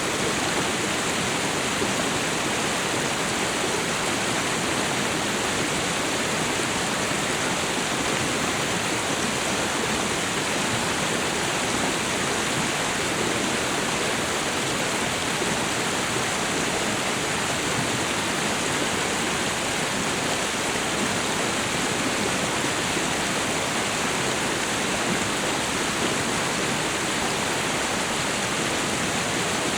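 Waterfall and river water rushing: a steady, even roar of falling and flowing water.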